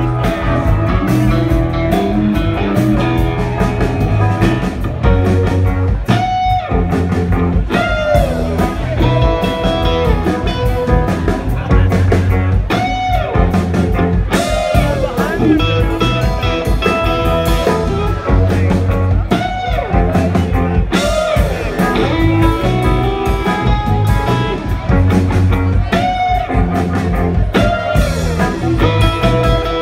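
Live rock band playing an instrumental passage: guitar over drums and bass, with recurring notes that glide down in pitch every couple of seconds.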